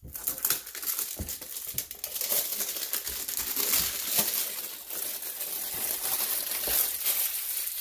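Plastic shrink wrap crinkling as it is peeled off a board game box, a dense crackle with many small snaps.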